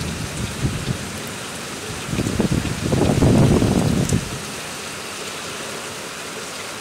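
Steady rain falling during a thunderstorm. A low rumble of thunder builds about two seconds in, is loudest around the middle and fades out a couple of seconds later.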